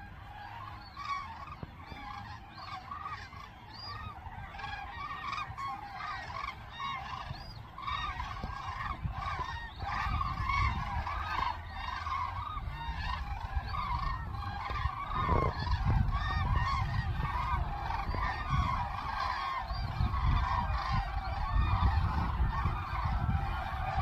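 A flock of common cranes calling in flight: many overlapping trumpeting, bugling calls in a continuous chorus. A low rumbling noise underneath grows louder from about a third of the way in.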